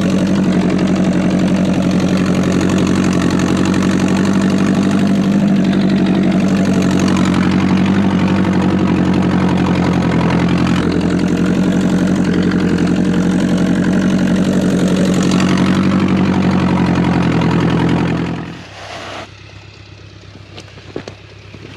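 1953 Ford Golden Jubilee tractor's four-cylinder gasoline engine running steadily under load as the tractor pushes snow with its plow blade. About 18 seconds in, the engine sound drops away abruptly, leaving a much quieter background with a few faint clicks.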